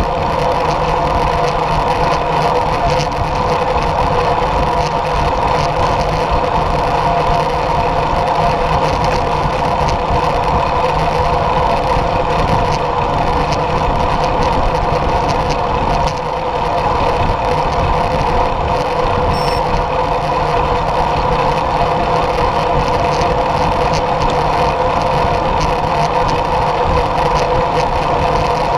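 Steady wind rush and tyre noise from a road bike riding at speed, picked up by a handlebar-mounted camera, with a constant hum under it and a brief dip about halfway through.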